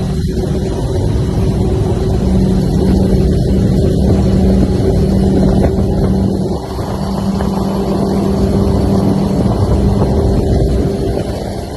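Motorboat engine running at high speed with a steady drone, mixed with rushing wind and water noise. The engine note and loudness dip briefly about six and a half seconds in, then pick up again.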